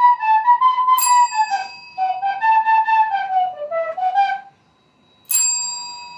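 Soprano recorder playing a short melody of quick notes, with a call bell dinging once about a second in. The recorder stops, and after a short pause the call bell is struck once, a loud ding that rings and slowly fades, as the Shiba Inu presses it.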